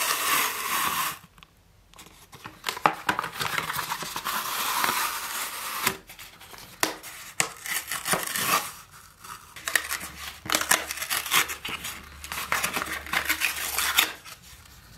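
Cheap plastic phone case being taken out of its packaging and handled: crinkling and tearing plastic with sharp clicks and taps of hard plastic, in bursts with short pauses.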